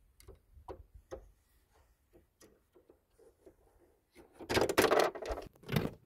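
Light taps of a small plastic toy figure being stepped across a hard dollhouse floor. About four seconds in, these give way to a louder rustling clatter of the figure and set being handled, lasting about a second and a half.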